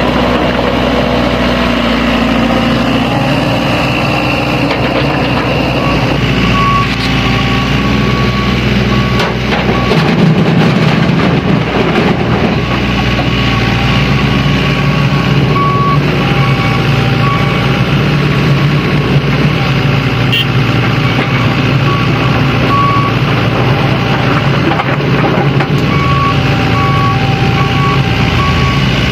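Reversing alarm beeping in repeated short beeps at one steady pitch, starting and stopping a few times, over the steady running of the heavy diesel engines of the Sany SY75C excavator and a dump truck.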